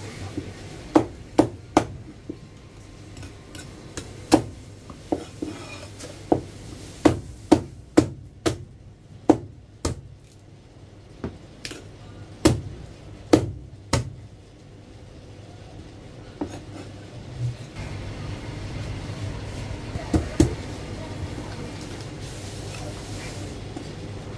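Cleaver chopping marinated goose on a plastic cutting board: about twenty sharp chops at an uneven pace, most of them in the first fourteen seconds and a few more later, over a steady low hum.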